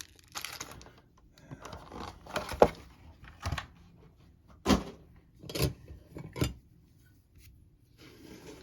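Trading card packs being pulled out of their cardboard box: light rustling of packaging with several sharp taps and knocks.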